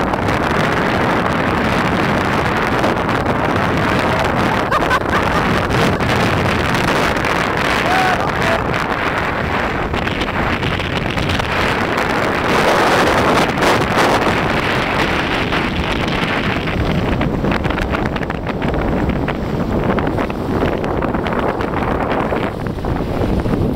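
Wind buffeting the microphone over water rushing along a sailboat's hull: a loud, steady rush that thins a little in its upper part near the end.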